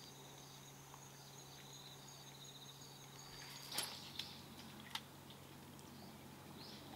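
Insects trilling in a faint, steady, fast-pulsing high chorus that stops a little past the middle. Then comes one sharp swishing click, the loudest sound, followed by two lighter clicks within the next second or so.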